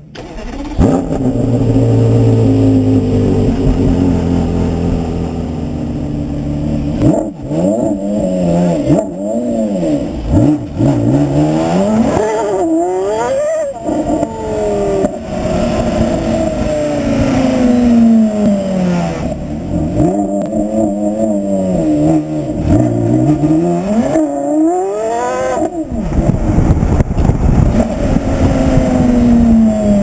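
Porsche Carrera GT's V10 heard right at the tailpipe. It runs at a steady low idle for the first several seconds, then is revved hard again and again. The pitch climbs sharply and falls back in long glides.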